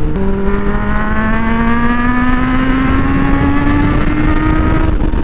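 Suzuki Bandit 600's inline-four engine under hard acceleration. Its note steps up at the start, climbs steadily for about five seconds and levels off near the end, with wind rushing past.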